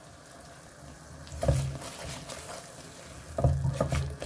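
Water poured into a mixer-grinder jar that held ground masala, with a sudden louder splash about a second and a half in. Near the end, rhythmic strokes begin, about two a second.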